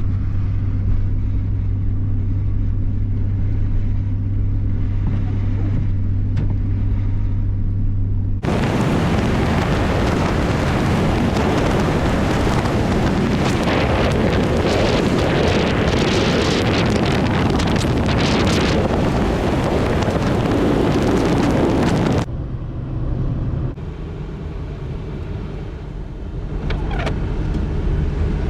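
Car driving with a steady low engine and road drone. About eight seconds in, a loud rush of wind noise cuts in abruptly and takes over for roughly fourteen seconds, then cuts out just as suddenly, leaving a quieter road drone.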